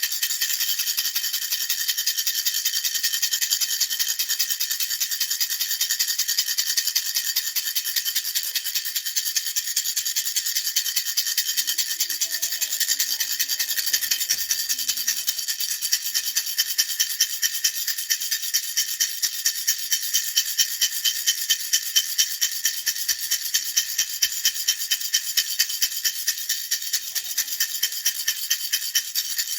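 Baby rattle shaken steadily in an even rhythm, about four shakes a second, a bright continuous rattling.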